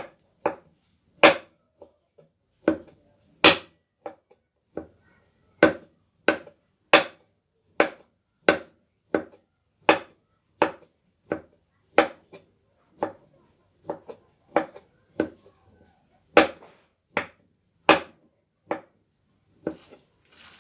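Kitchen knife chopping food with steady, even strokes, about three every two seconds.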